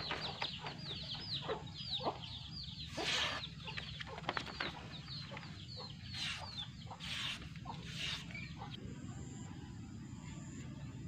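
Freshly restored kitchen knife slicing through a sheet of paper in four short swishes, about three, six, seven and eight seconds in, as a sharpness test. Under it, rapid high chirping of birds that dies away about halfway through.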